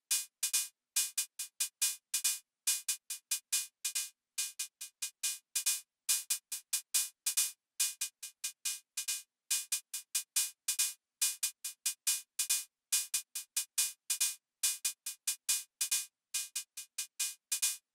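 Akai Rhythm Wolf drum machine playing a sequenced pattern of short, bright, hissy percussion hits, several a second, with no kick or bass under them.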